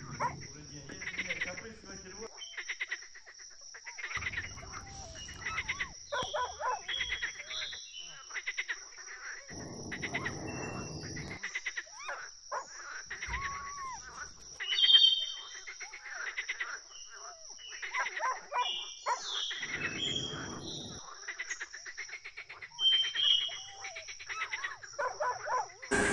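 Many short, high animal calls in quick succession, some rising and falling in pitch, over a steady high-pitched whine.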